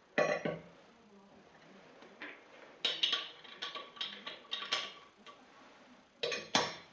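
Irregular sharp metallic clicks and short scrapes of a hand wrench working a car wheel's lug nuts, bunched about a second in and again from the middle to near the end.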